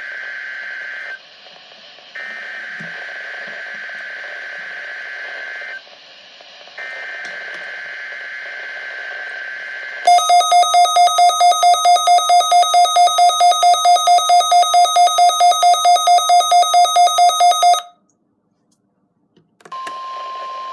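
Emergency Alert System signal: three bursts of SAME header data, a screechy modem-like warble over radio hiss, then a loud buzzy alarm tone pulsing about five times a second for roughly eight seconds. After a short silence, a steady alert tone starts near the end.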